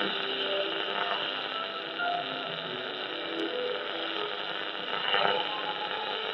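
Barlow Wadley XCR-30 Mark 2 shortwave receiver playing a weak AM broadcast signal through its speaker, buried under steady hiss and hum, with only faint traces of programme audio.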